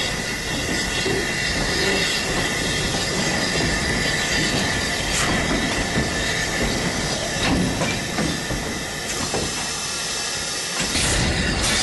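Steam locomotive running along the track, heard from on board: a steady hiss of steam over the noise of the wheels on the rails.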